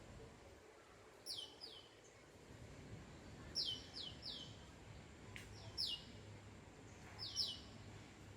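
A bird calling with short, high, downward-sweeping chirps, mostly in quick pairs, repeated every second or two.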